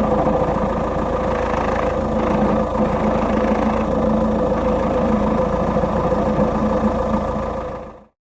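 Peugeot 407's 2.0 HDi four-cylinder diesel engine idling with the rattle of a failing dual mass flywheel. The sound cuts off suddenly near the end.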